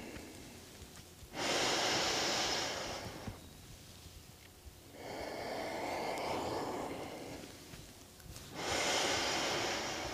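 A woman's deep breaths during a yoga pose, heard close up: three breaths in all, each about two seconds long. The middle breath is lower and softer than the other two.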